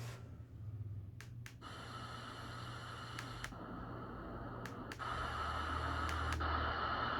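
Baby white-noise machine playing a steady hiss that starts right after a couple of clicks, with a few more clicks later on and a step up in loudness about five seconds in.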